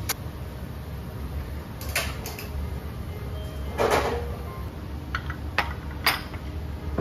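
Scattered sharp clicks and knocks of tableware and utensils being handled, with one louder knock about four seconds in, over a steady low hum.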